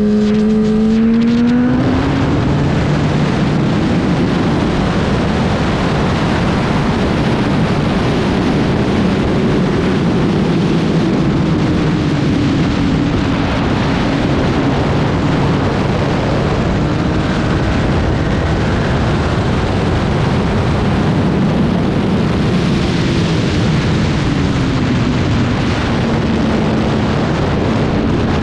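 Racing motorcycle engine under hard running, its pitch climbing in the first two seconds. After that a steady rushing noise covers it, with the engine still audible underneath. Near the end the engine's pitch dips and then climbs again.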